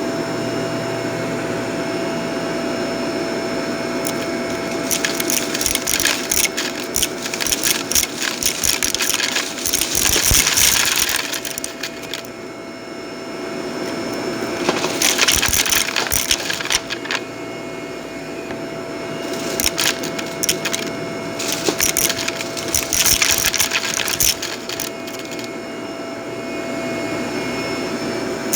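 Vacuum cleaner running steadily with a constant whine, crackling and crunching in three stretches as it sucks up crisp debris from the carpet.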